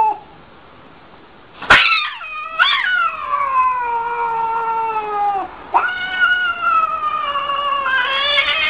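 Domestic cat yowling in a defensive threat: two long, drawn-out yowls that slide down in pitch, the first starting a little under two seconds in and the second just before the six-second mark.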